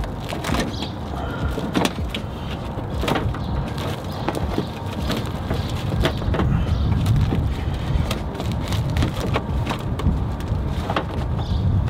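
Clear plastic wrap crinkling and crackling as it is handled around a car headlight, in scattered sharp crackles, over a steady low rumble.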